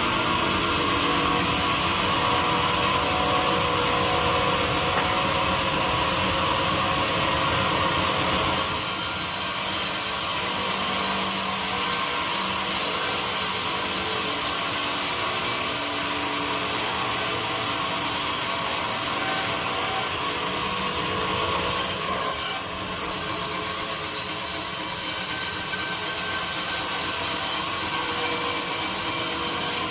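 A power tool working wood, giving a steady, loud, hissing grind that changes abruptly several times as the work shifts.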